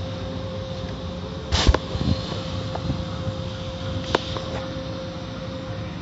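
Automatic car wash heard from inside the car: steady machinery hum with a constant tone, water and foam spraying, and soft cloth wash strips sweeping over the windshield. A loud thump comes about a second and a half in and a sharper knock about four seconds in.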